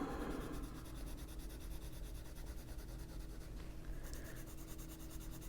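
Prismacolor colored pencil shading on paper. Under it runs a faint steady hum: a leaf blower going outside.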